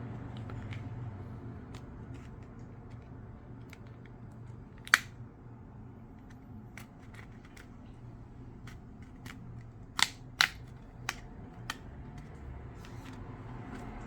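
Scattered sharp clicks and taps of small tools and plastic phone parts being handled while a Samsung A12 is taken apart for reassembly: one loud click about five seconds in and a quick run of clicks near ten to twelve seconds. A low steady hum runs underneath.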